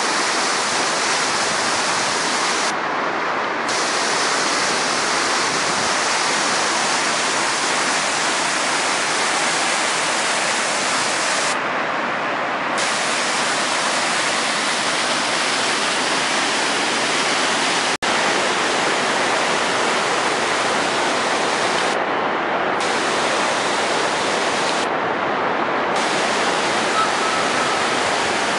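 Martuljek waterfall rushing: a loud, steady roar of falling water, broken by one momentary cut-out about two-thirds of the way through.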